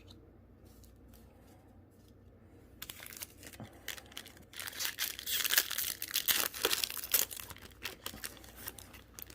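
A Yu-Gi-Oh! booster pack's foil wrapper being torn open and crinkled, starting about three seconds in and lasting several seconds.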